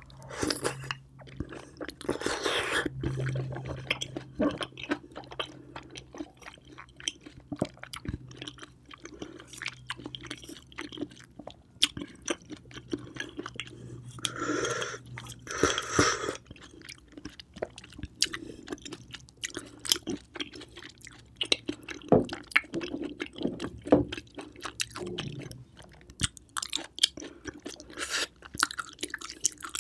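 Close-up eating of big grilled oysters from the shell: wet slurps as an oyster is sucked off the shell, about two seconds in and again around fifteen seconds, with moist chewing and lip smacks throughout.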